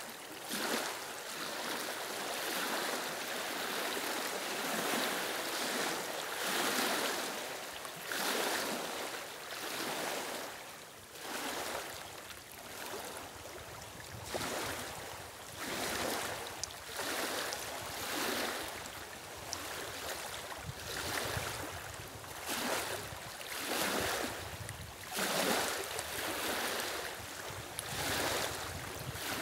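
Small waves lapping and washing over the stones of a reedy lakeshore, a swell of water noise every second or two.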